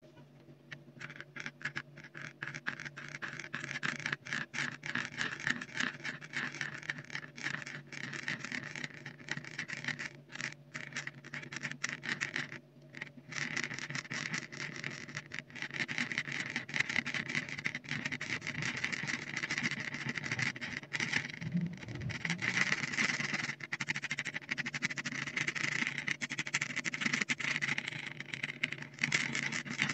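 Thick paint being stirred and smeared with a thin stirring tool on a textured mat: a fast, continuous patter of small wet clicks and scrapes, with a brief break a little before the middle. A faint steady low hum lies underneath.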